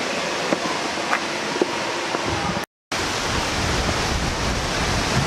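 Wind blowing across the camera microphone: a steady rushing noise with a low rumble. It cuts out completely for a moment about halfway, and the rumble is heavier after the gap.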